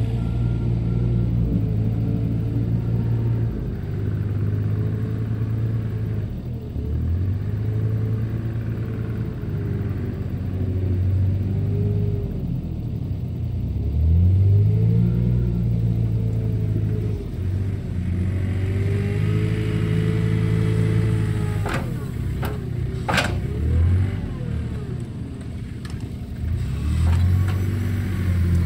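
Small wheel loader's engine running and revving up and down again and again as it works a pile of rice-husk compost. A couple of sharp knocks come about three-quarters of the way through.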